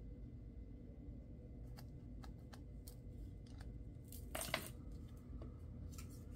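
Faint handling noises of small craft items being worked by hand: a scatter of small clicks and a brief scrape or rustle about four and a half seconds in, over a low steady hum.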